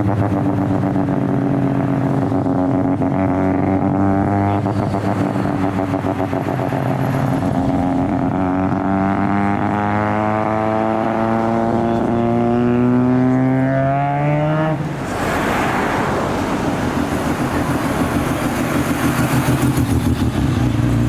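Car engine accelerating, its note climbing slowly and steadily for about thirteen seconds. It then drops away suddenly into a rougher noise, and a lower, steady engine note takes over near the end.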